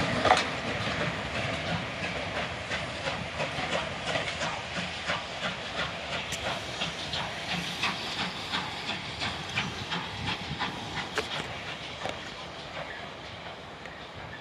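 Steam-hauled passenger train running away over the track, a steady rhythmic clatter over a hiss that fades steadily as the train recedes.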